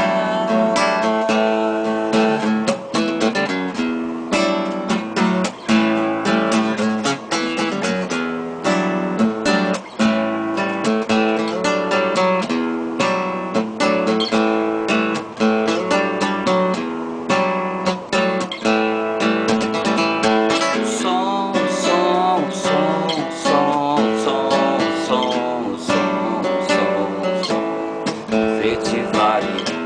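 Acoustic guitar strummed and picked in an instrumental passage of a song.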